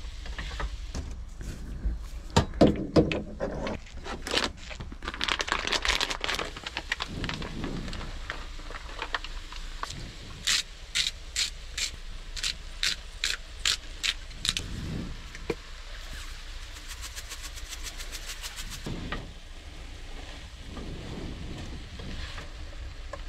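Cookware and utensils knocking, clicking and scraping during stir-fry preparation, with a run of about two sharp knocks a second in the middle and a quick string of light ticks after it.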